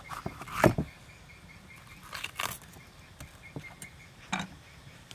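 A kitchen knife cutting through a green bell pepper onto a wooden chopping board: a few separate sharp knocks and cuts, the loudest less than a second in and a short cluster about two seconds in.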